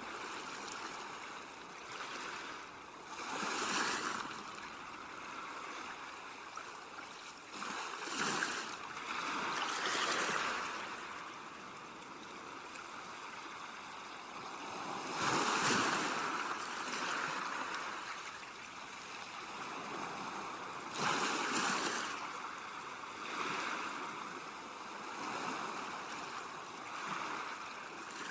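Ocean surf breaking and washing ashore, a constant rush of water with waves swelling up and fading away every few seconds.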